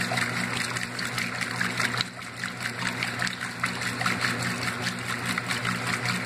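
Older Maytag top-load washing machine running with its lid open: water splashing and trickling in the tub over a steady low motor hum.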